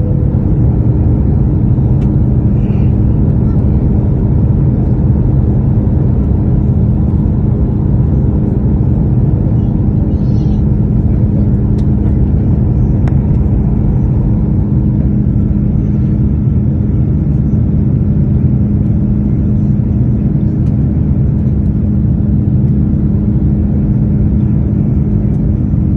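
Steady cabin roar inside an Airbus A330-900 in its climb after takeoff: the Rolls-Royce Trent 7000 engines at climb power and the rush of air past the fuselage, with a steady low hum running under it.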